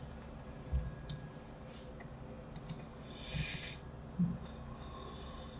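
A few scattered, separate clicks of a computer mouse and keyboard over faint room tone.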